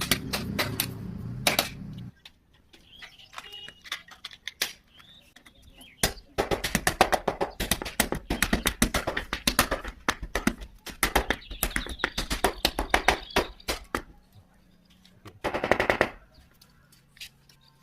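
Rapid runs of sharp taps or knocks, many a second, in long bursts mid-way and a short burst near the end, from hand work on an aluminium shisha fitting. A low steady machine hum cuts off about two seconds in.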